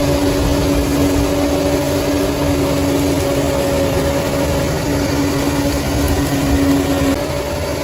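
Bulldozer's diesel engine running steadily, a low rumble with a steady pitched whine over it. The sound drops a little about seven seconds in.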